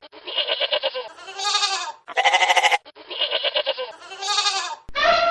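Sheep bleating, a quick series of about six quavering bleats. Near the end a different, long and steady animal call begins.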